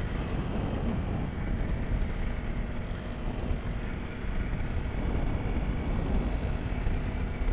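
Honda CRF 300L's single-cylinder engine running steadily, with wind noise on the microphone.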